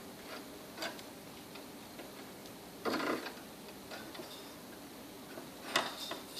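A few light, irregularly spaced clicks and a brief rustle about three seconds in as a sewing machine and its thread are handled, over a faint steady hum.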